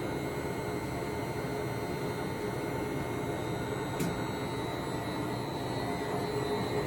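Large Poreba TPK110/6M engine lathe running with its spindle turning: a steady machine hum carrying several constant tones. A single short click sounds about four seconds in.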